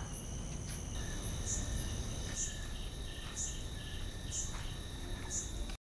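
Crickets and other night insects calling: several steady high trills, with one chirp repeating about once a second. The sound cuts off suddenly near the end.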